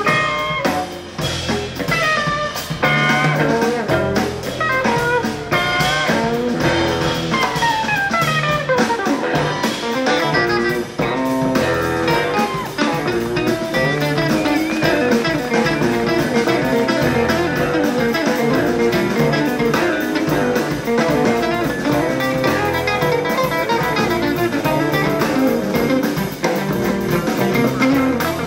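Jazz quartet of two electric guitars, bass and drum kit playing live: the guitars wind through fast, sliding runs over bass and drums.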